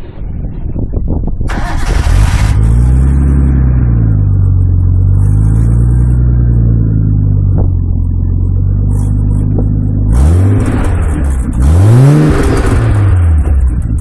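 Nissan Skyline HCR32's straight-six exhaust heard at the muffler tip, idling and being free-revved. It rises and falls in two slow swells, then gives two quicker, sharper blips near the end before settling back to idle.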